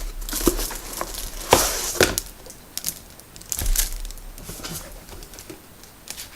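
Packaging crinkling and rustling as it is handled, in irregular bursts that are busiest in the first few seconds and thin out towards the end.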